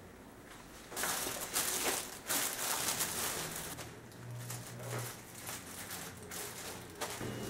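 Thin plastic sheet crinkling in repeated irregular bursts as it is folded and pressed around a cake by hand, starting about a second in.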